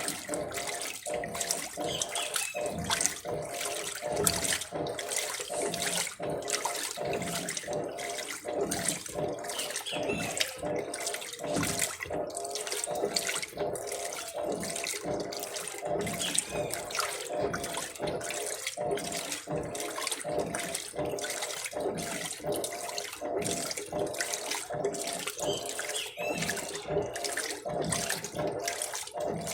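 Electrolux LTC15 top-loading washing machine filling with water on its maximum water level: a steady stream pouring and splashing into the tub.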